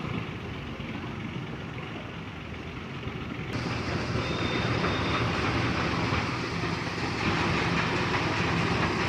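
Heavy diesel road-construction machinery running with a steady low drone. About three and a half seconds in, a louder, noisier rumble suddenly joins it.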